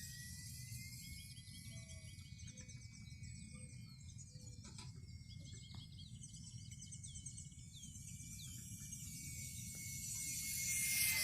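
Thin steady whine of an ultra-micro electric RC warbird's motor and propeller in flight, drifting slightly up and down in pitch, with small birds chirping and a low rumble of wind. A rush of noise swells near the end.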